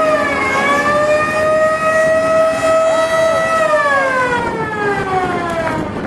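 Fire truck's mechanical siren held at a steady pitch, dipping briefly near the start, then winding down in a long falling glide over the last two and a half seconds. A fainter second tone rises and falls briefly about three seconds in.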